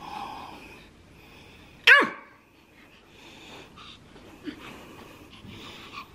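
A small dog, a Pomeranian, gives one sharp, loud yap about two seconds in, its pitch falling quickly.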